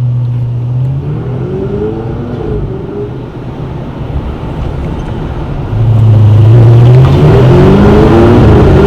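A car engine accelerating. Its revs rise briefly about a second in, then it gets much louder from about six seconds in as it revs up, climbing in pitch.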